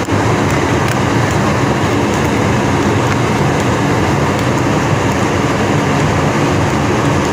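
Steady, loud drone of a ship's machinery mixed with wind noise on an open deck. A few faint knocks sound through it.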